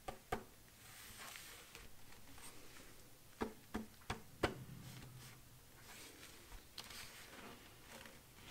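Black-gloved fingertips tapping and rubbing on the moulded plastic back panel of a light-up logo sign, near its battery cover. There are two sharp taps at the start and four more in quick succession around the middle, with soft scratching between them.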